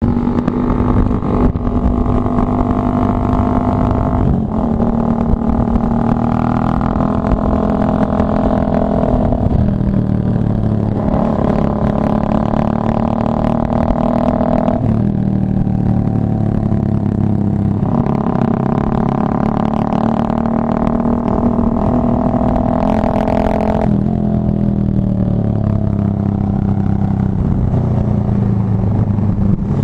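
Motorcycle engine running while riding, heard from the bike the camera is mounted on. Its pitch holds steady, then dips and climbs back several times as the throttle is eased and reapplied.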